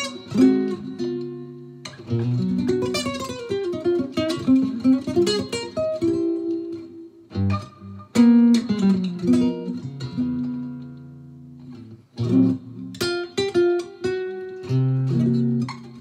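Cordoba Stage nylon-string guitar played clean through a Fender Deluxe amp: jazz improvisation of quick single-note runs and chords. About ten seconds in, a chord is left ringing and fading, then the playing picks up again.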